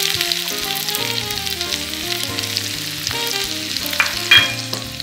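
Chopped onion sizzling as it fries in bubbling butter and garlic in a frying pan, with a couple of sharp clicks about four seconds in.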